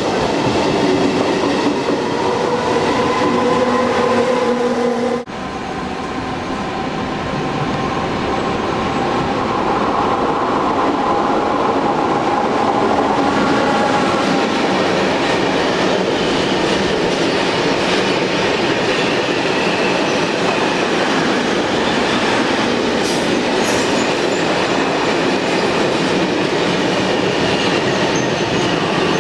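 Trains passing close along a station platform, with the steady running noise of wheels on rails. In the first five seconds a passing regional passenger train carries steady tones. Then comes a sudden break, and a locomotive-hauled freight train of covered wagons rolls past.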